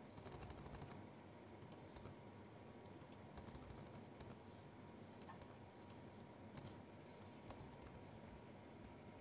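Faint computer keyboard typing: a quick run of keystrokes in the first second, then scattered single key presses.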